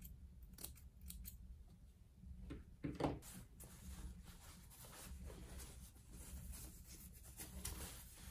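Small scissors snipping a few times through thin fabric. About three seconds in, cloth rustles as a pressing cloth is laid over the denim, then it rubs softly as it is smoothed by hand.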